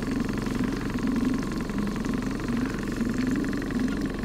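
Boat motor running steadily, an even engine hum with a slight waver in its pitch.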